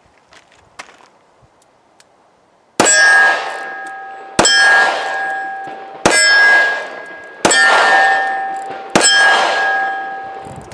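Five shots from a Taurus 85 Ultra Lite .38 Special revolver, starting about three seconds in and about a second and a half apart, each answered by a steel target plate ringing with a clear tone that dies away before the next shot.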